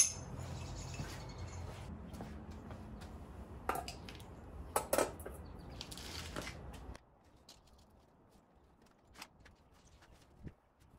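Metal parts and tools being handled on a workbench: a few separate clinks and knocks over a low steady background. About seven seconds in the sound cuts off abruptly to near silence with only faint ticks.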